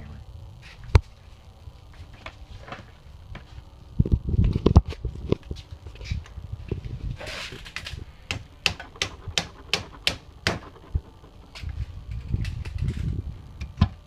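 Claw hammer tapping a white plastic block against a hard drive magnet clamped in a bench vise, working the magnet off its steel base plate. A quick run of about nine light taps comes a little past the middle, with a sharp click about a second in and duller handling knocks around it.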